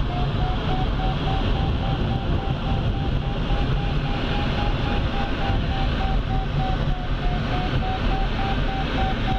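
Steady airflow rush in the cockpit of a Centrair Pégase glider in flight, with a continuous electronic tone from the audio variometer wavering slightly up and down in pitch.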